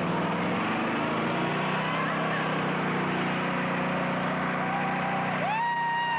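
A car engine revving up, rising in pitch over the first couple of seconds, then running steadily under load. From about five and a half seconds in, a loud, high, steady squeal of a spinning tyre breaks in as the car starts a burnout.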